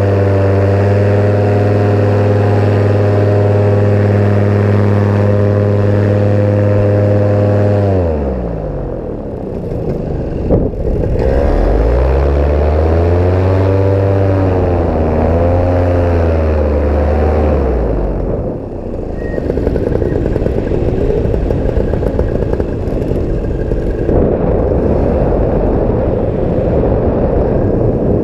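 Paramotor engine running steadily at a constant throttle, then throttled back about eight seconds in. For several seconds it is revved up and down, then cut back again. After that a steady rushing noise with no clear engine tone takes over.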